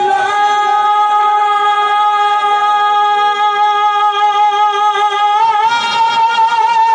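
A man singing one long, high held note of a naat into a microphone, amplified over loudspeakers. The pitch steps slightly up about five and a half seconds in and is held again.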